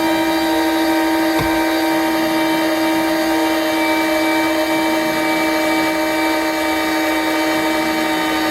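Steady motor whine of a breaking-strain test rig pulling on braided fishing line, holding one even pitch throughout.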